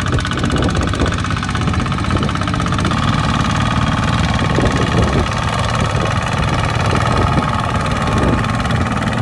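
Two-wheel walking tractor's single-cylinder diesel engine running steadily with a fast, even beat, working under load as it hauls a trailer of rice sacks through mud.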